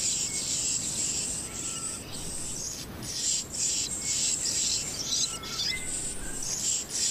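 Forest insects singing in a steady, shrill, high-pitched chorus that breaks off in many brief gaps, with a few faint short bird notes.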